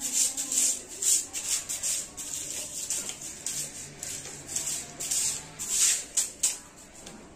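Short hand broom swept in quick strokes across a tiled floor, each stroke a dry, hissy swish, about two a second, growing fainter near the end.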